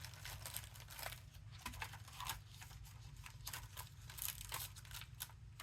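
Hands sorting through rubber stamps and their paper and plastic sheets: light, irregular rustling and crinkling with small clicks and taps.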